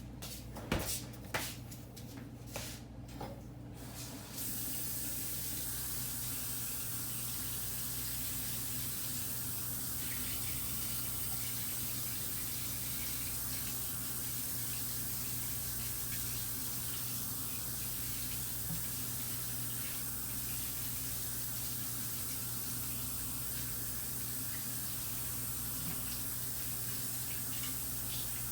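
A few light knocks, then water starts running steadily from a tap into a sink about four seconds in and keeps running.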